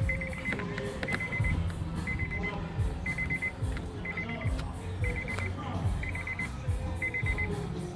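Background music with a steady beat: low thuds and bass under a short, high beeping figure that repeats a little faster than once a second.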